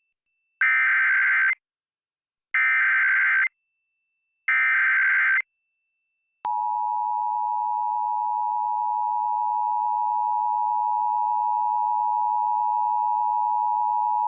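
Emergency Alert System signal for a child abduction alert: three bursts of SAME digital header data tones, each about a second long with a second's gap between them, then the steady two-tone EAS attention signal (853 and 960 Hz) starting about six seconds in.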